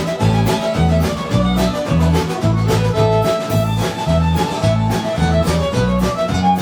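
Live band playing an up-tempo bluegrass-style tune: string instruments carry the melody over an alternating bass line and a steady drum beat.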